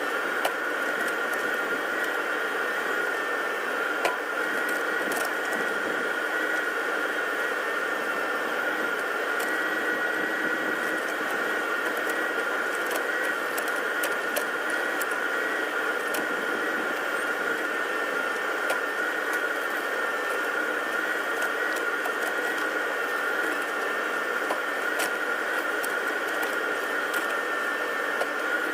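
Case 580 Super N backhoe's diesel engine running steadily under a continuous high whine, with a few light clicks and knocks scattered through.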